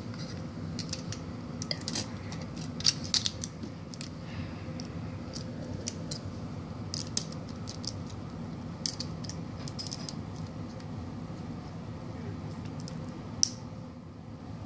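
Plastic Lego bricks clicking and snapping as pieces are handled and pressed onto a small model car, with a cluster of sharper clicks about three seconds in and one sharp click near the end, over a steady low hum.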